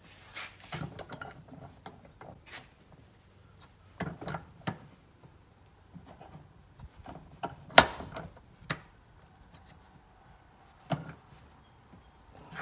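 Small metal parts handled at a bench vise: a mower deck chute's torsion spring and shaft being levered with a steel rod and clamped, giving scattered clicks, knocks and scrapes, with one sharp metal clack about two-thirds of the way through.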